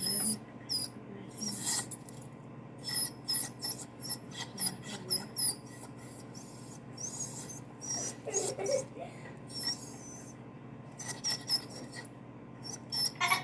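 Dog whining: many short, very high-pitched whimpers coming in quick clusters with brief pauses between them, and one lower, louder cry about eight seconds in.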